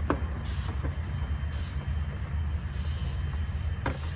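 A steady low rumble, with a few light clicks, one just after the start and one near the end.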